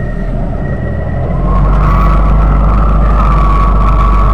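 Komatsu motor grader's diesel engine running under load as the machine works across loose rock. About a second and a half in it grows louder, with a steady high whine over the engine's low rumble.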